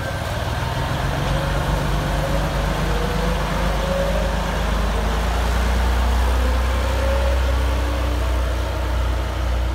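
GE 50-ton diesel switch locomotive running as it rolls past along the track, a steady low diesel rumble that swells slightly as it passes and eases as it moves off.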